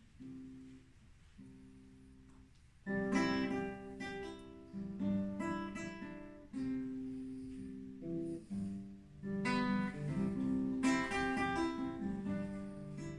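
Unamplified acoustic guitar heard in the room, opening a song: a few soft picked notes, then louder strummed and picked chords from about three seconds in, with a short break around eight seconds in.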